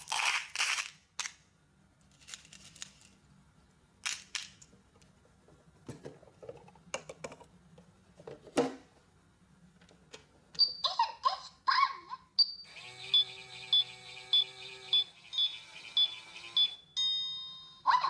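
Candy-coated chocolates poured by hand into a plastic cup, then a few clicks as the cup is handled and set in a toy microwave. The Minnie Mouse toy 'magic microwave' then plays its electronic sounds as its buttons are pressed: a run of short beeps, a running sound with rapid even ticking, and a chime near the end.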